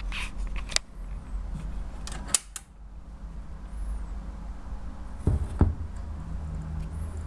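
Clicks and knocks of a 1960s Decca stereogram's Garrard record deck being handled and started, over a steady low hum from the amplifier and turntable motor; two heavier thumps a little past halfway, typical of the tone arm setting the stylus down on the record before the music begins.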